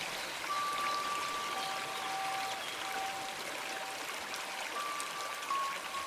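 Steady flowing water like a stream, with soft held bell tones at two pitches coming and going over it.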